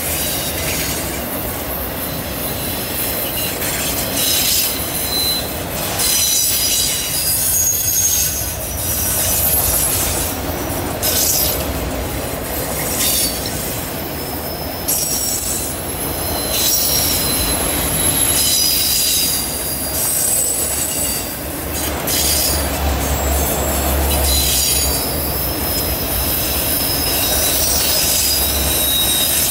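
Freight train of autorack cars rolling past on a curve, its wheels squealing against the rail in high, wavering tones that come and go over a steady rolling rumble.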